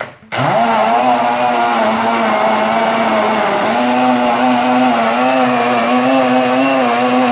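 Electric kitchen blender switched on with a click, its motor spinning up quickly and then running steadily at high speed, its pitch wavering slightly as it purées banana, papaya, apple and milk into a fruit smoothie.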